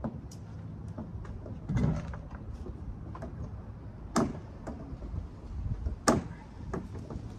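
Irregular knocks and clacks of hollow plastic shed panels being pulled and worked loose by hand. There is a heavier thud about two seconds in and sharp knocks about four and six seconds in.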